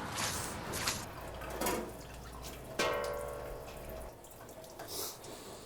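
Dishwashing at a sink: water dripping and running, with a few light clinks and one ringing clank of a dish or utensil about three seconds in.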